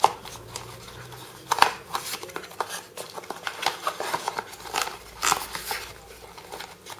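Small cardboard boxes and a paper insert being handled and pulled out of a cardboard packaging box: irregular rustling, scraping and light taps, with sharper knocks about a second and a half in and again about five seconds in.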